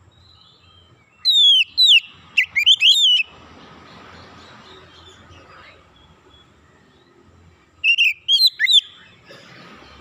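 Oriental magpie-robin singing: two short bursts of loud, clear whistled notes that sweep up and down, one about a second in lasting two seconds, the other about eight seconds in.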